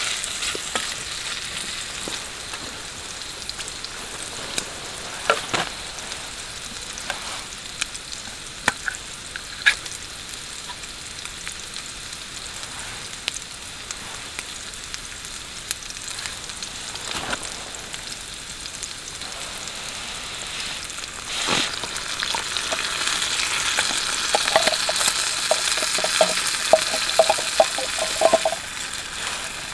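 Chopped meat sizzling in a small steel frying pan over campfire embers, with sharp spits and the scrape of a wooden stick stirring now and then. About two-thirds of the way in the sizzling jumps louder as beans go into the pan, and stays louder until near the end, with a quick run of light taps.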